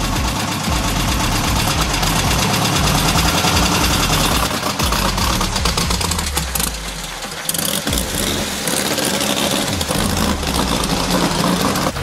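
1972 Volkswagen Super Beetle's air-cooled flat-four engine running steadily with a fast, even pulse, its level dipping slightly a little past halfway. The engine is running well on fresh gasoline after sitting unused for a long time.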